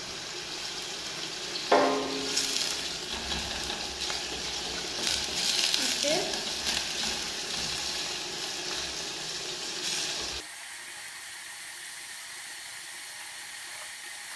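Sliced onions sizzling in hot oil in a stainless steel pot while a wooden spoon stirs them, with a short knock about two seconds in. About ten seconds in the stirring stops and the sizzle drops to a softer, steady hiss.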